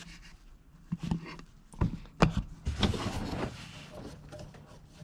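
A few sharp clicks and knocks, the loudest a little past two seconds in, then a brief scraping rustle: hands and tools handling a rusty, removed car horn and its wiring.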